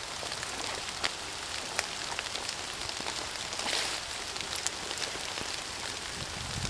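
Steady rain falling, an even hiss with a few sharper single drips landing close by.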